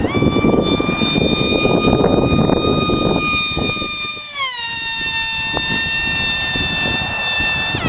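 Boosted Ford Lightning truck running hard, a loud high-pitched whine held steady over the engine and exhaust noise. The whine slides lower in pitch about four seconds in and dips sharply and recovers near the end.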